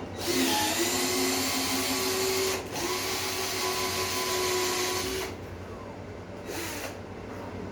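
An angle grinder running on steel in two long runs, with a brief break between them and a short burst near the end.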